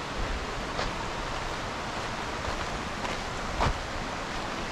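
Steady rushing of a waterfall plunging into its pool, with a few faint ticks and one louder thump about three and a half seconds in.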